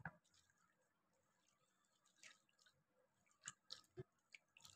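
Near silence, then a few faint, short wet clicks and squishes near the end as a hand starts moving sliced onion rings about in water on a plate.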